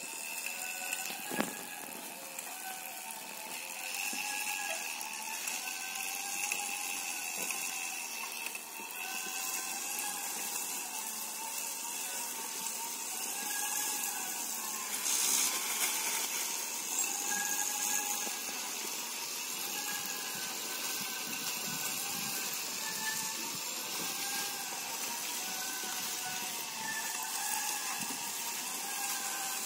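A 1000 W e-bike motor driving a small electric tractor towing a loaded trailer, with a steady high whine whose lower tones waver up and down every second or two. A single sharp knock comes about a second in.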